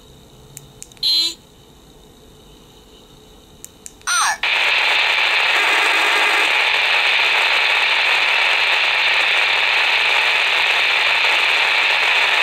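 Baofeng BF-F9 V2+ handheld radio. After two short sounds from it as keys are pressed, about four seconds in its speaker breaks into a loud, steady hiss of FM static, the squelch open on a channel with no signal. The owner thinks the squelch needs turning up.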